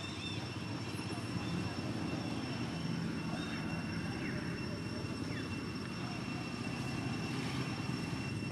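Steady low rumble of distant engine noise, with a faint, steady high-pitched whine above it.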